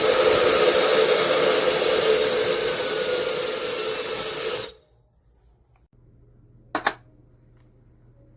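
SUPGALIY mini ionic hair dryer running, its high-speed motor blowing with a steady whine, then switched off abruptly about five seconds in. A faint hum and a single click follow about two seconds later.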